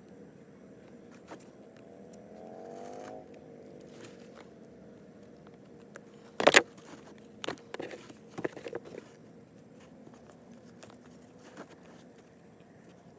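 Scissors cutting a rubber gasket pad: a loud sharp snip about six and a half seconds in, then a quick run of smaller snips and clicks. Earlier, an engine briefly rises in pitch in the background, about two to three seconds in.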